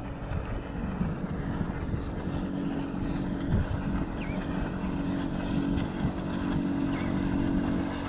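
A boat motor hums steadily, under wind and water noise.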